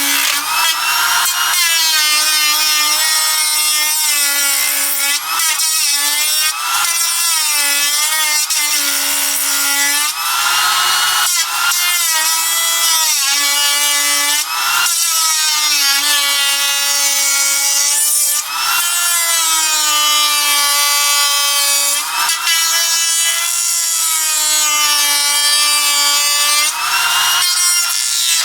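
Router cutting a groove in laminated MDF, the motor's high whine dipping in pitch and recovering again and again as the bit is pushed through the board, with short breaks between passes.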